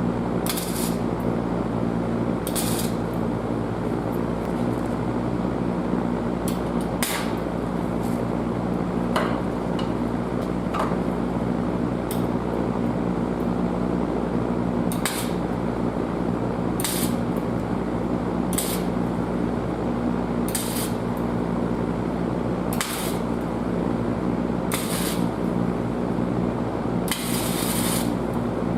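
Welding on exhaust pipe: a steady crackling hiss over an electrical hum, with short sharper crackles about every two seconds.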